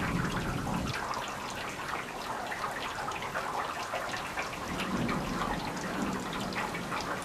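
Steady rain falling and dripping close to the microphone, a dense patter of drops. A low rumble of distant thunder fades out about a second in and comes back faintly around five seconds.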